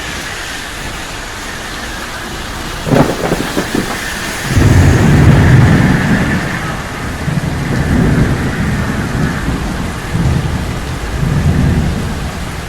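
Thunder in steady rain: a sharp crack about three seconds in, then a long, low rolling rumble that swells and eases several times.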